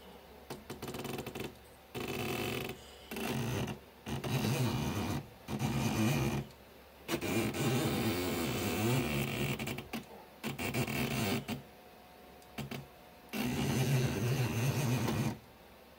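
Stepper motor of a 3D-printed Arduino indexer turning its rotary table in a series of short moves, each from half a second to three seconds long, with brief pauses between. Its whine dips and rises in pitch as the motor slows and speeds up on the longer move.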